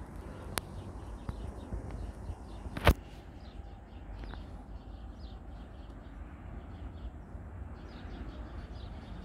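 Small birds chirping repeatedly over a steady low outdoor rumble, with two sharp clicks, the louder one about three seconds in.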